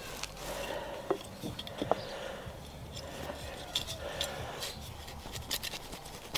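Soil being scraped and rustled by hand while planting, with scattered light clicks and knocks.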